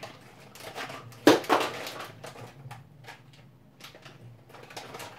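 Off-camera handling noise: a sharp knock just over a second in, then a brief rustle and scattered light clicks.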